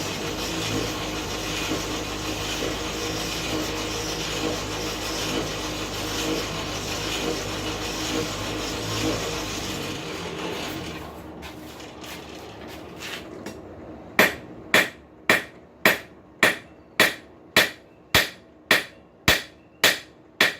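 A forge runs with a steady noise for about the first half while the rasp's tip heats. Then a hammer strikes the hot steel on the anvil about a dozen times in a regular beat, just under two blows a second, each with a short ring, flattening the snake's tongue.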